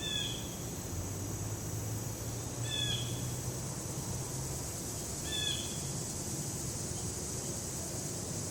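An unidentified woodland animal call, short and slightly falling in pitch, repeated three times about two and a half seconds apart, over a steady high-pitched drone of insects.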